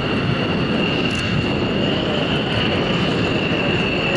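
Aircraft engine running steadily: an even rushing noise with a constant high-pitched whine over it.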